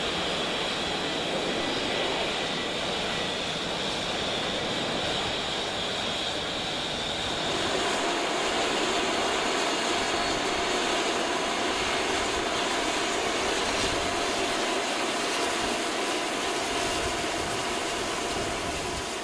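Single turboprop engine of a T-6A Texan II running at taxi power with a steady whine; about seven seconds in it switches abruptly to the steady high whine of a T-1A Jayhawk's twin turbofan engines taxiing.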